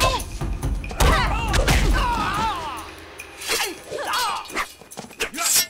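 Martial-arts film fight sound effects: sharp hits and thuds, the loudest about a second in and near the end, with wavering cries and yells between them.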